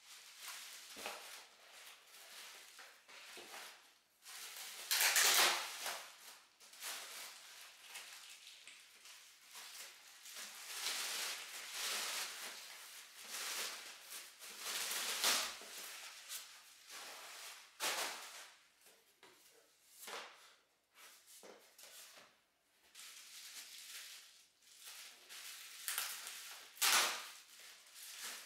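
Plastic film and bubble wrap crinkling and rustling as they are handled and pulled off foam model-plane parts, in irregular bursts, loudest about five seconds in and near the end.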